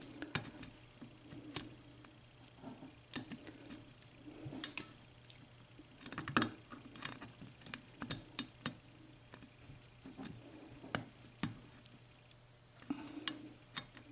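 Lock pick and tension tool working the pins inside a Sargent mortise cylinder, making irregular small metallic clicks and light scrapes while probing for the dimple pin. A faint steady low hum runs underneath.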